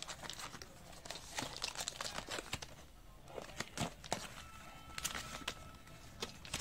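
Clear plastic packaging crinkling and clicking as it is handled, a run of irregular crackles and sharp taps.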